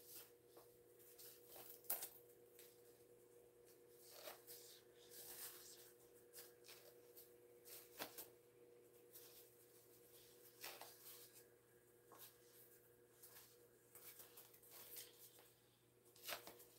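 Faint rustling and crinkling of fabric and double-sided tape backing as the tape is peeled and the fabric edge folded down, in scattered short bursts. A faint steady hum runs underneath.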